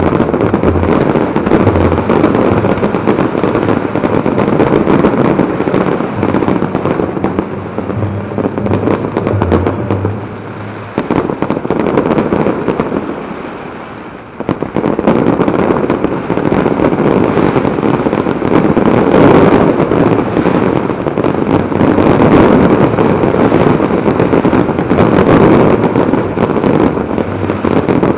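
Dense fireworks barrage: a loud, continuous mass of bangs and crackling. It eases off about eleven seconds in and builds again about three seconds later.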